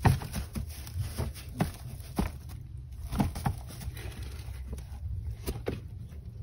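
Dry straw bedding crackling and rustling as a rabbit shifts about in its hutch while a hand strokes it. There are irregular sharp clicks, the loudest right at the start.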